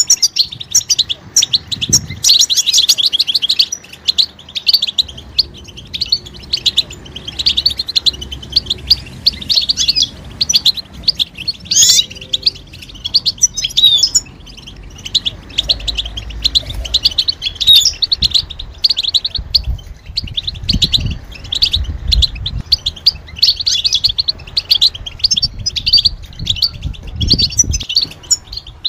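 European goldfinches calling together in a dense, rapid twitter of short high chirps, with no pause. These are the excited mating and readiness calls of goldfinches.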